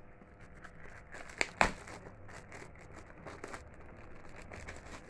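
Thin clear plastic packaging crinkling as it is handled, with two sharp, louder crackles about one and a half seconds in.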